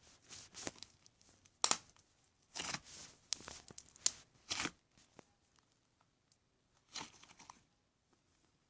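Slime being squished and stretched by hand, giving irregular bursts of crackling with a few sharp pops over the first five seconds, then a pause, then one more crackling squish about seven seconds in.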